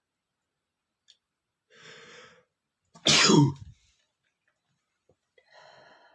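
A man sneezing: a breathy intake of breath, then one loud, sudden sneeze about three seconds in, followed by another breath near the end.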